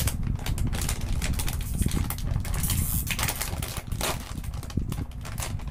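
Crinkly plastic potato-snack bag being handled and pulled open, a dense run of crackles and rustles, with a louder rasp about three seconds in as the sealed top is pulled apart.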